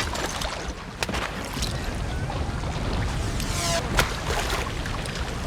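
Battle soundtrack of a beach landing: a steady low rumble of surf and engines with sharp cracks of gunfire, one about a second in and a louder one about four seconds in.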